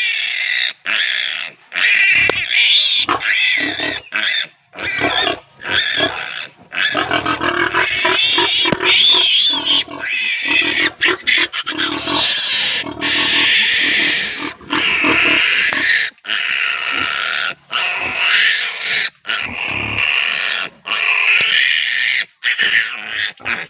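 Day-old piglet squealing loudly in long, repeated screams with short breaks, held down while its needle teeth are clipped.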